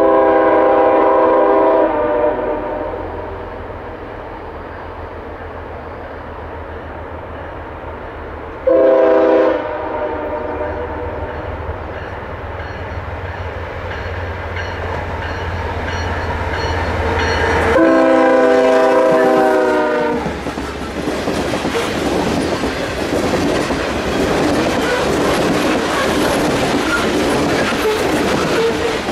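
Diesel freight locomotive's multi-note air horn sounding three times: a blast of about two seconds at the start, a short one about nine seconds in, and a longer one near eighteen seconds, over the steady sound of the locomotive's engine as it approaches. After the last blast the train passes close by, its wheels running over the rails.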